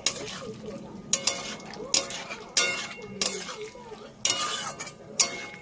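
Metal spatula scraping and clanking against a metal kadhai as a drumstick and potato curry is stirred while its masala fries, with about eight sharp clatters at irregular intervals.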